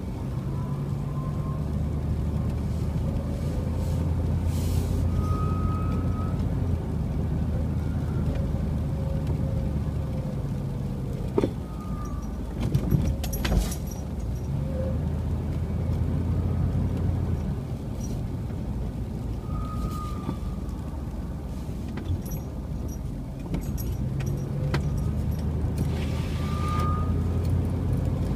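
Car driving, a steady low engine and road rumble that rises and falls in pitch a few times, with a few sharp knocks about halfway through.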